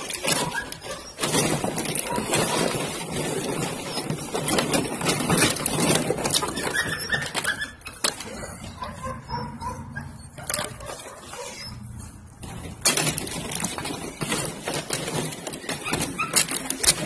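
Belgian Malinois puppies playing with plastic bottles and a sack: steady crinkling, rattling and scuffling, with a few faint high whimpers toward the middle.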